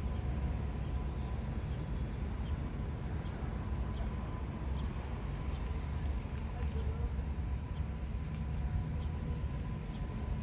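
Outdoor ambience: a steady low rumble with small birds chirping faintly and repeatedly over it.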